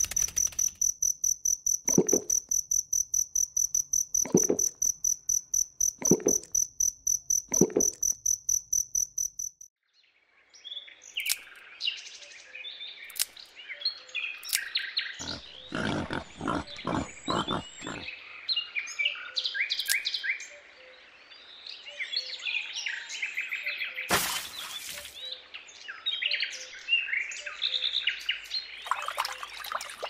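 Dubbed nature sound effects. For the first ten seconds a fast, pulsing, high-pitched insect-like trill runs with four short low notes about two seconds apart. Then many short high bird chirps follow, with a quick run of five or six lower calls around sixteen seconds in.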